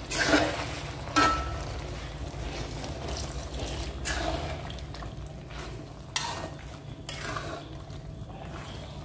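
Metal ladle stirring thick chicken curry in an aluminium pot, scraping the pot and clinking against it now and then, as coconut milk is stirred in. A steady low hum runs underneath.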